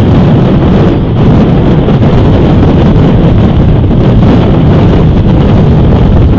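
Loud, steady wind noise buffeting an outdoor camera's microphone: a low, rumbling rush with no other distinct sound.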